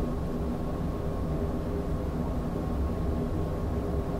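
Steady low rumble and hum of running machinery, with a few faint steady tones over it.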